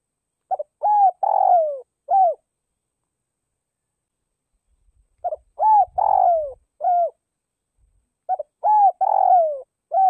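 Spotted dove cooing its calling song: three phrases a few seconds apart, each a short note, a double rising-and-falling coo, a longer falling coo and a short closing coo.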